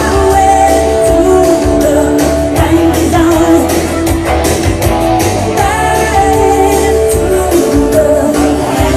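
Loud rock song with a singing voice, its held sung notes over a band backing with frequent sharp hits.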